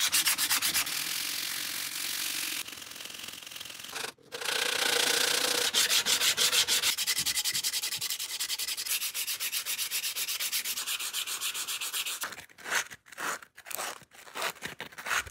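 Wooden handle being sanded by hand with abrasive paper: quick back-and-forth rasping strokes of sandpaper on wood. There is a brief break about four seconds in, and the last few seconds hold slower, separate strokes.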